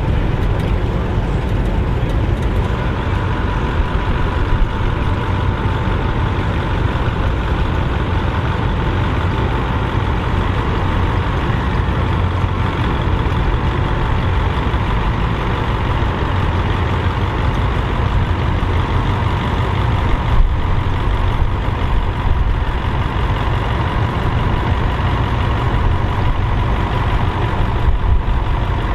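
Tractor engines running steadily as tractors drive past.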